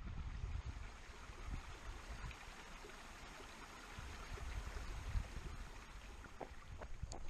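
Shallow stream running over rocks and stones, a steady rushing noise with a low rumble beneath it. A few footsteps start near the end.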